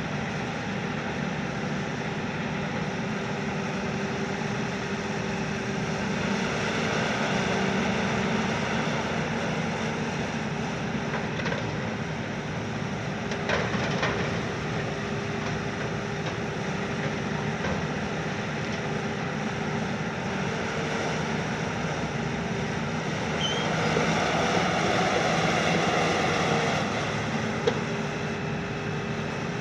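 A KMC 380 S-6 long-front demolition excavator, built on a Hitachi base, with its 210 kW diesel engine and hydraulics running steadily. The engine note swells louder twice as the boom works, once about seven seconds in and again around twenty-five seconds. There is a brief knock about fourteen seconds in and a sharp click near the end.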